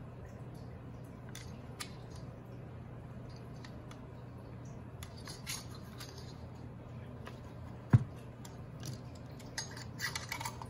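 Handling of an aluminium LED aquarium light fixture on a rubber work mat: scattered light clicks and taps, then a single sharp knock about eight seconds in as the fixture is set down. Near the end a quick run of clicks and scrapes as a screwdriver pries at its plastic fan cover, over a steady low hum.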